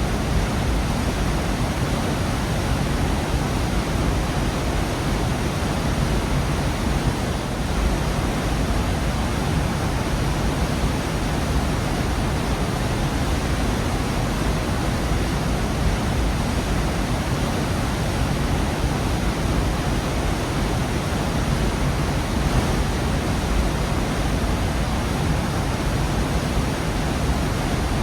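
A gorge waterfall pouring steadily, a dense, unbroken rush of falling water with a strong low rumble.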